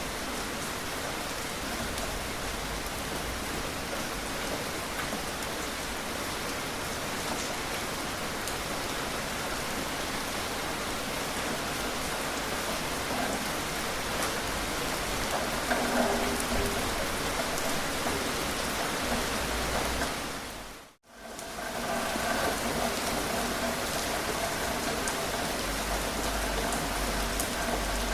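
Steady rainfall, an even hiss of many drops. About three-quarters of the way through it fades out to silence for a moment, then fades back in.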